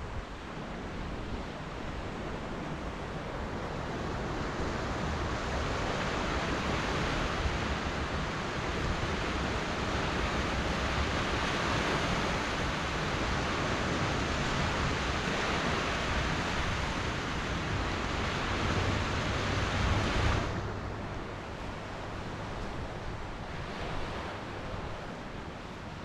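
Ocean surf washing onto a sandy beach, a steady hiss of breaking and running water with wind rumbling on the microphone. The wash swells over several seconds, then drops away suddenly about twenty seconds in, leaving a softer hiss.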